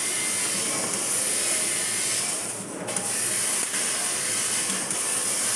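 A 2 kW CNC laser cutter cutting 3 mm mild steel: a steady high hiss of assist gas at the cutting nozzle over machine running noise. The hiss briefly drops about halfway through, then resumes.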